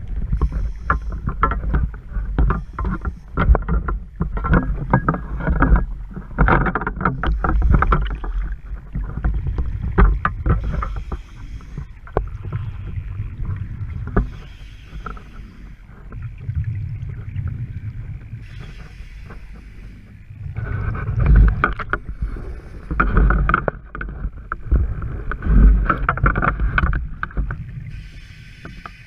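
Scuba diver breathing through a regulator underwater. Each inhale is a short hiss and each exhale a long burst of bubbling, repeating every few seconds over a low rumble of water against the camera housing.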